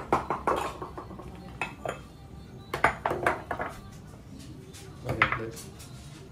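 A plastic cup and a steel tumbler knocked and set down on a granite counter and wooden cutting board, in several short clusters of clinks and knocks.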